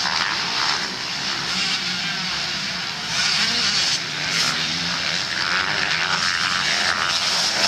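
MX2-class motocross bikes racing on a dirt track: several engines running at high revs. They get louder about three seconds in as a pack of riders comes round the bend.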